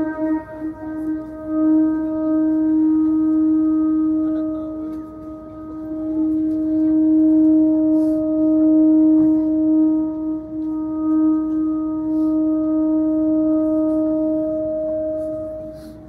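A single long, steady horn-like note held for about sixteen seconds, wavering a little in loudness, then stopping abruptly.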